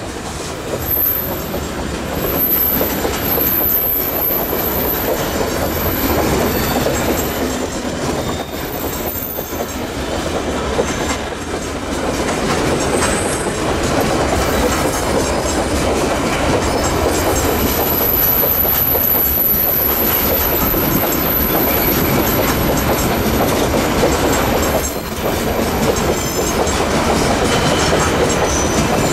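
A long train of empty coal hopper wagons rolling past on a curve, with a steady rumble and clatter of wheels over the rails. A high-pitched squeal from the wheels on the curve comes and goes, and is held longest a little past the middle.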